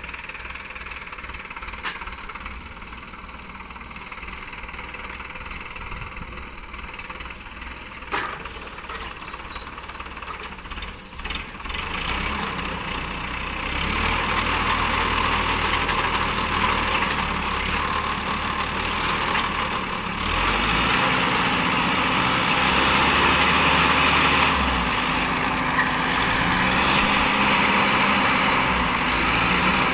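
Sonalika tractor's diesel engine running steadily while working a tractor-mounted post-hole auger. The engine grows louder about twelve seconds in and again about twenty seconds in, as the hydraulics lift the auger out of the hole and then lower the boom.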